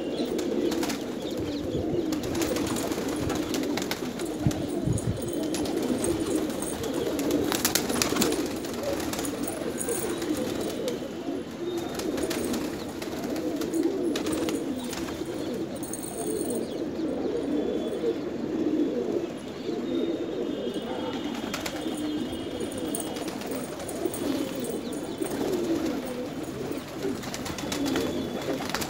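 A loft full of domestic pigeons, gola and racing pigeons, cooing together in a continuous chorus of overlapping low coos.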